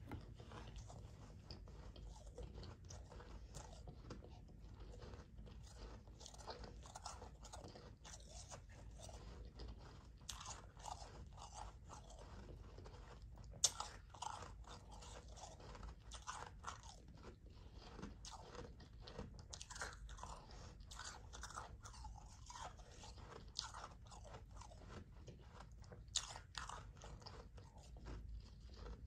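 Mouthfuls of soft, powdery ice being chewed, a quick, uneven run of small crunches, with a sharp click about fourteen seconds in.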